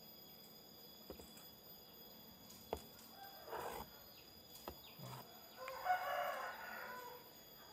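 A bird calling in the background: a shorter call a little past the middle, then a longer one of about a second and a half near the end, the loudest sound here. Two light clicks from the air impact wrench being handled come in between.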